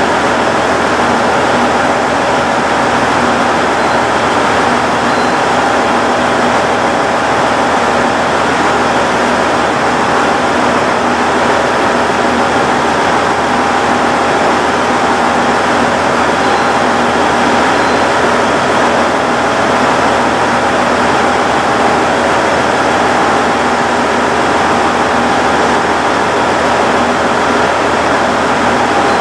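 Diesel engine of a KiYa 95 measuring train running steadily at a constant speed: an even, loud mechanical hum with a fixed pitch that does not rise or fall.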